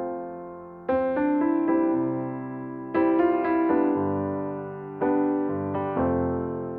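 Background music: a slow, gentle piano piece, chords struck about every two seconds and left to fade.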